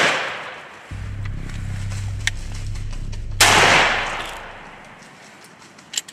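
A shotgun shot a little over three seconds in, its echo rolling away over about a second, after the echo of a first shot fired just before. A low steady music drone runs underneath.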